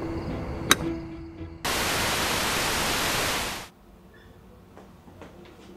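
A burst of loud, even hiss like TV or tape static, cutting in abruptly about one and a half seconds in and cutting off about two seconds later. It comes as the picture changes to camcorder footage. Before it there is a steady low hum and a single sharp click; after it, faint room tone with light ticks.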